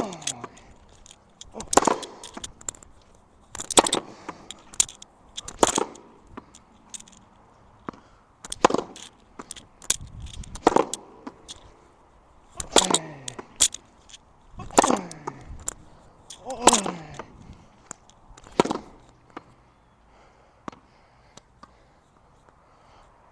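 Tennis ball struck hard with a racket against a practice wall, about one sharp hit every two seconds, often a racket crack quickly followed by the ball slapping the wall. These are overhead smashes with a rain-soaked ball that barely bounces.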